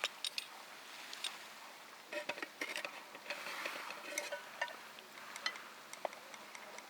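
Irregular light clicks, knocks and clinks, some with a brief metallic-sounding ring, of small hard objects being handled, over a soft steady hiss.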